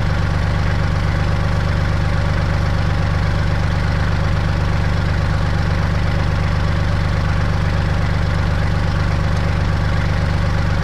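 An engine idling steadily, a deep, unchanging drone.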